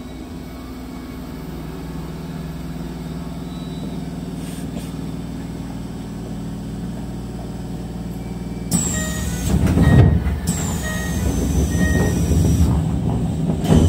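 Keisei electric train standing at a platform, its onboard equipment giving a steady low hum. About nine seconds in, louder mixed sounds start: short repeated beeps, a high tone sliding down and heavier low rumbling.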